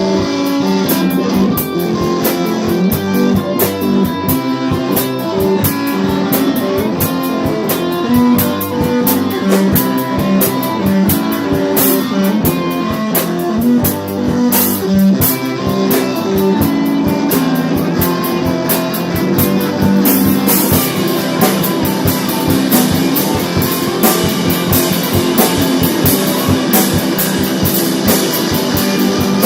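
Rock band playing: guitars over a drum kit, with the cymbals getting busier about twenty seconds in.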